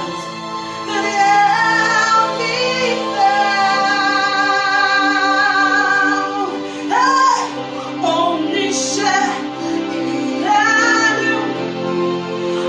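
A woman singing a worship song in long held notes with vibrato, over steady sustained accompaniment chords.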